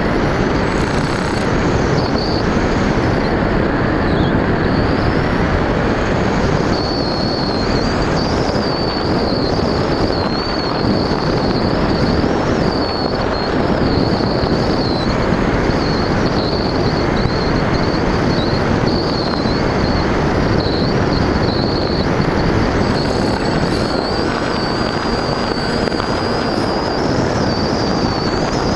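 FPV model aircraft's motor and propeller running, heard from the onboard camera: a steady high whine that wavers slightly in pitch with the throttle, over loud rushing wind and propeller noise.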